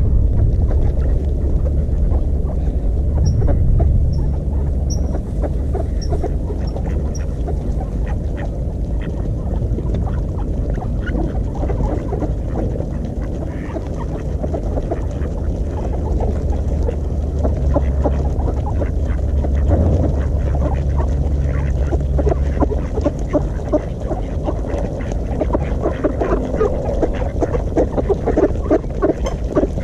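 Ducks quacking as they feed in a flock on the ice, among many short clicks and a steady low rumble. A few faint high peeps come about three to seven seconds in.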